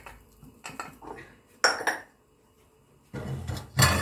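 Kitchen clatter: a few short clinks and knocks of dishes and utensils on the counter, the sharpest a little under two seconds in, then a longer, louder rattle of kitchenware being handled near the end.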